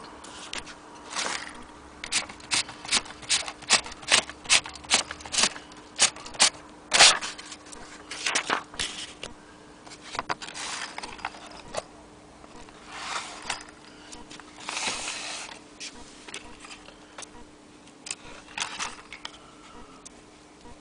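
Keys of an aluminium Blickensderfer Featherweight typewriter being struck one at a time: sharp clacks about two a second at first, then slower and irregular, with a few longer scraping sounds in between.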